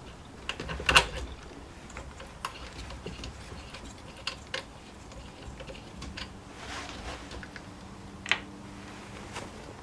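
Irregular small clicks and taps of trimmer parts being handled and fitted during reassembly. The sharpest knock comes about a second in, and another comes near the end.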